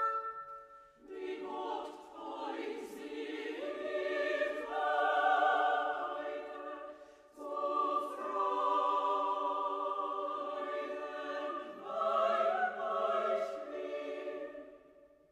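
Background music of a choir singing long, held chords in several phrases, with short breaks between them.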